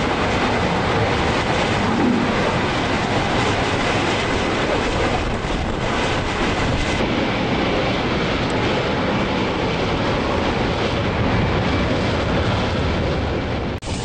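F-35B Lightning II's F135 turbofan jet engine running at high power with its lift fan engaged for a short takeoff: a loud, steady rushing jet noise.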